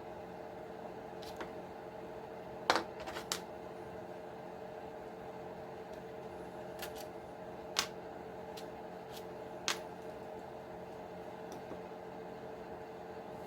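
A few sharp clicks and clacks of small RC transmission parts being handled and pulled apart, the loudest a quick cluster about three seconds in and single clicks later on, over a steady background hum.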